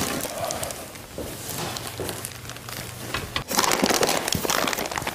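Plastic wrap crinkling and rustling as a wrapped cast iron bandsaw table is lifted out of its styrofoam packing, with louder, denser crackling from about three and a half seconds in as more packed parts are handled.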